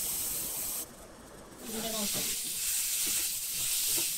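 A steady hiss while the laser marks the wok's base, cutting off a bit under a second in. After a short lull comes stir-frying in a wok: food sizzling, with the spatula scraping and knocking against the pan.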